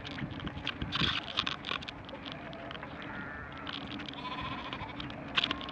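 Sheep bleating: a few short wavering calls about three seconds in and again about a second later, over scattered clicks and steady road noise.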